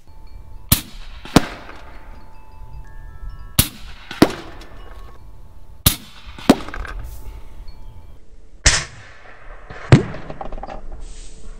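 Umarex Gauntlet .30 PCP air rifle firing 78-grain slugs from 100 yards into a block of ballistic gel, four times. Each shot is heard as two sharp cracks about half a second apart, several with a short buzzing tail that the shooter likens to a fart from the gel.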